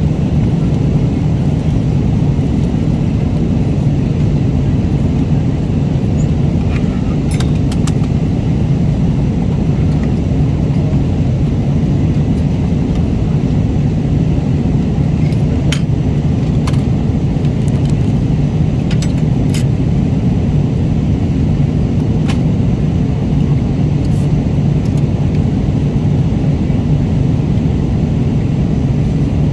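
Airliner cabin noise: a steady, loud, low rumble of the engines and airflow, with occasional faint sharp clicks, as of cutlery or meal packaging, in the middle part.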